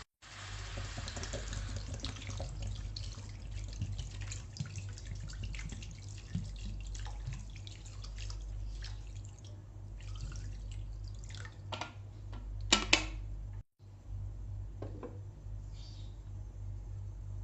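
Kitchen water sounds: water splashing and dripping with many small clicks and clinks, over a steady low hum. About 13 seconds in comes a louder, briefly ringing clatter, like a metal utensil striking a pot.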